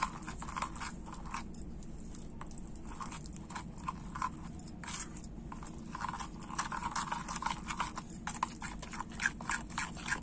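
A metal utensil stirring thick, wet yogurt-and-flour batter in a ceramic bowl: soft squelching with repeated clicks and scrapes against the bowl, busier and louder in the second half.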